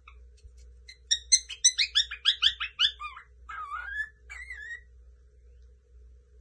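Lutino cockatiel calling: a fast run of about a dozen sharp chirps, then a few warbling, whistled notes that slide up and down.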